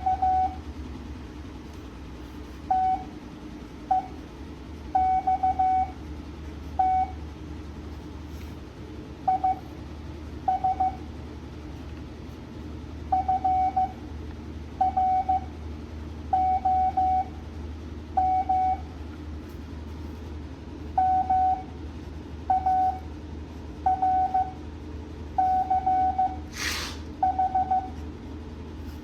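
Morse code (CW) practice audio at 7.5 words per minute: a single steady beep tone keyed into dots and dashes, sent as short letter groups separated by pauses of a second or more. A steady low hum runs underneath, and a brief hissing noise sounds a little before the end.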